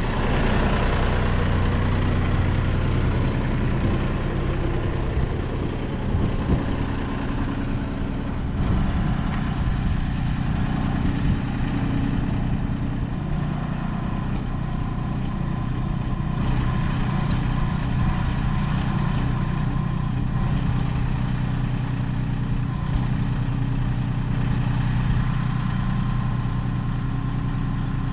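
A vehicle engine idling steadily, with a few short knocks about six seconds in.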